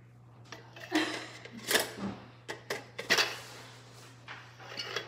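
Red plastic BeanBoozled game spinner being handled and flicked on the table: a handful of irregular clicks and clacks, several in quick succession in the first half.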